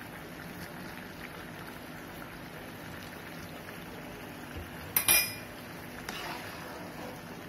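Cornflour-thickened Manchurian gravy boiling in a metal pan, a steady bubbling hiss. About five seconds in, a sharp double clink of a metal spatula against the pan, then fainter knocks as it stirs.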